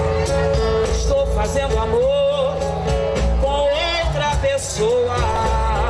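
Live music: a woman singing a wavering, gliding melody over a band with a strong bass line.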